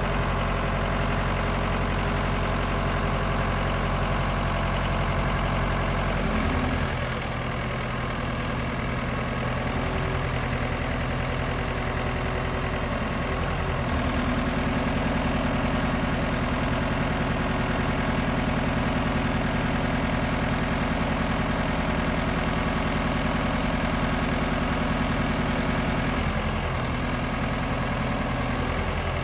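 Diesel engine of a Combilift C14000 forklift running steadily. Its note shifts a few times, about a quarter, halfway and near the end of the stretch, with a faint high whine that drops and rises along with it.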